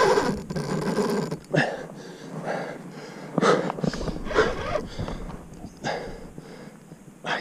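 A man breathing hard and grunting in short bursts every second or so, straining while playing a large wels catfish on the rod.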